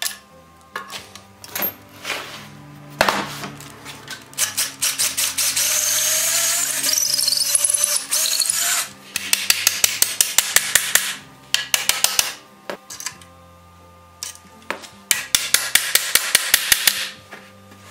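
Cordless drill boring for several seconds, then working in stretches of rapid, evenly spaced clicking, about seven a second, with a few sharp knocks before it starts.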